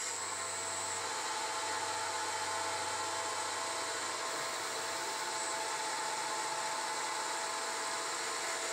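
A 9x20 benchtop CNC metal lathe running, its spindle turning steadily with an even mechanical whine.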